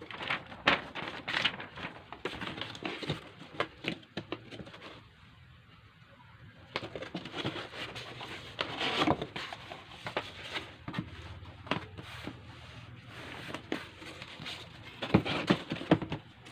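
Packaging being handled: irregular crinkling and rustling with sharp knocks and clicks, pausing briefly about five seconds in.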